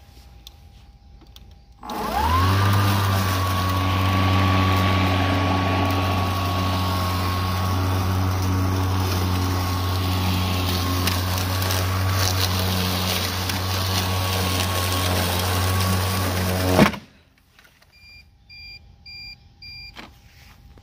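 Greenworks Pro 60V brushless cordless lawn mower spinning up about two seconds in with a quick rising whine, then running at a steady electric hum with a high whine, and cutting off suddenly near the end as the motor shuts off.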